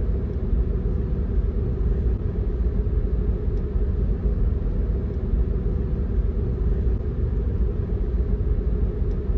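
Steady low road and tyre rumble heard inside the cabin of a moving 2021 Tesla Model 3, an electric car.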